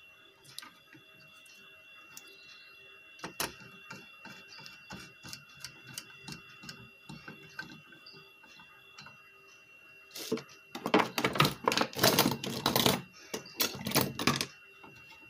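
Hands working inside an opened inverter: faint clicks and ticks of screws, tools and wires, with one sharper click about three seconds in, then a few seconds of louder clattering and rustling as cables and the metal case are handled near the end.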